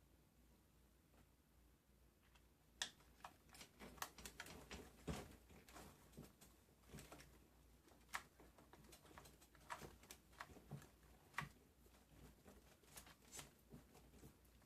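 Faint, irregular clicks and light taps of a small screwdriver and plastic RC car parts being handled while the servo arm screw is fitted, starting about three seconds in.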